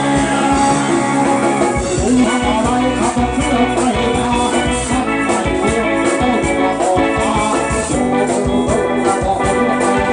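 A live band playing loud amplified music with a steady beat.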